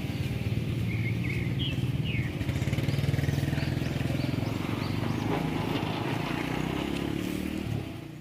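A Mazda 2 hatchback's petrol engine running steadily close by, a low even hum, with small birds chirping faintly over it in the first few seconds.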